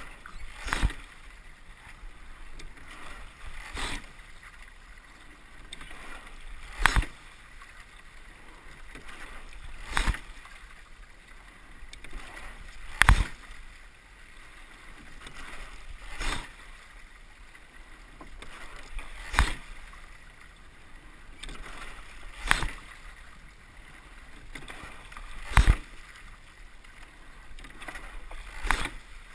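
Rowing boat under way at a steady, low stroke rate: a sharp knock from the oars in their oarlocks about every three seconds, once per stroke, with water rushing along the hull in between.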